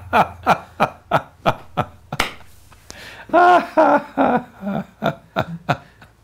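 A man laughing heartily in a run of short 'ha' bursts that fade out, then a second fit of laughter about three seconds in that trails off.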